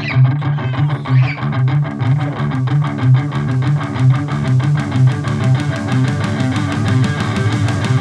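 Heavy rock song led by a strummed electric guitar over a low bass line, with an even, fast pulse.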